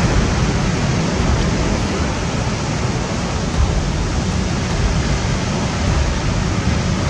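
Steady rush of sea surf and wind, an even noise heaviest in the low end, with no distinct events.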